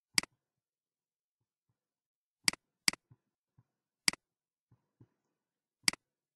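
Computer mouse button clicked five times, each a sharp click with its quick release, with near silence between.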